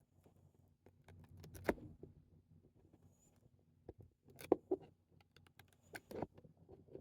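Trading cards and their pack wrapper handled by hand: scattered light clicks, taps and rustles, with a sharper snap about a second and a half in and a few more in the second half.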